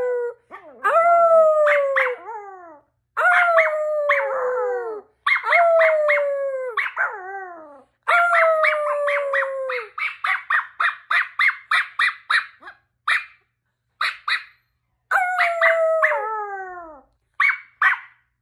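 Small long-haired dog howling: about five drawn-out howls that each slide downward in pitch, broken by stuttering yips, with a fast run of short yips about halfway through.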